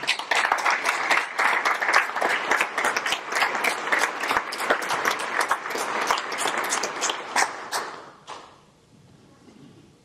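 Audience applauding: dense clapping that starts at once and fades out after about eight seconds.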